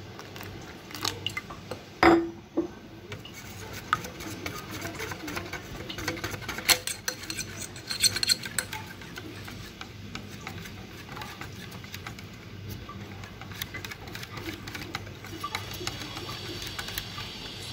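A wire whisk beats a thin semolina-and-flour batter in a glass bowl, its wires clicking and tapping against the glass in a quick, uneven rhythm. There is one louder knock about two seconds in.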